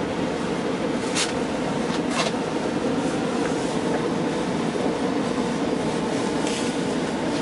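Lastochka (Siemens Desiro RUS) electric train heard from inside the carriage: a steady low hum, with two short hisses about one and two seconds in.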